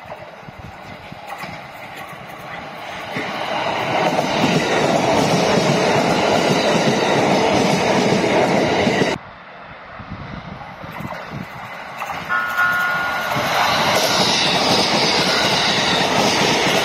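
JR East E129 series electric train passing close by on ballasted track: the rumble and clatter of its wheels over the rails grow louder as it comes up, then hold steady and loud. The sound cuts off abruptly about nine seconds in and builds again with a second passing, which brings a short steady high tone about twelve seconds in.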